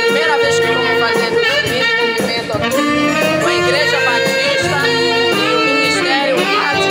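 Tenor saxophone playing a melody of held notes with vibrato and slides between them.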